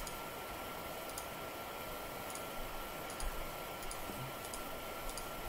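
About seven faint, light clicks at a computer, spaced irregularly, over a steady room hiss with a thin, constant high tone in the background.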